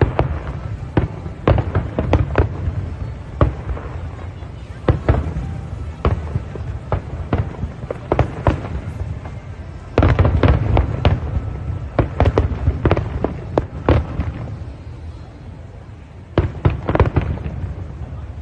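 Fireworks display: shells bursting in quick, irregular succession over a steady low rumble. It thickens into a dense barrage about ten seconds in and ends with another short flurry near the end.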